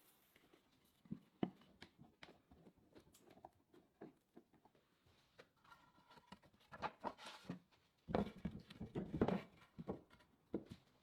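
Workshop handling noise: scattered light knocks and clicks, becoming a busier cluster of knocks and rubbing in the later part.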